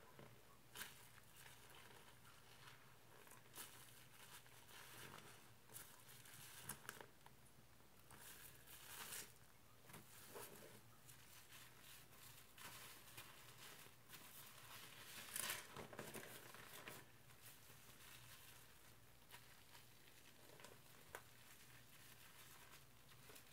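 Faint crackling and squishing of laundry-detergent foam as a soapy rag and car sponge are handled in a sink of sudsy water, coming in irregular bursts, loudest about nine and fifteen seconds in.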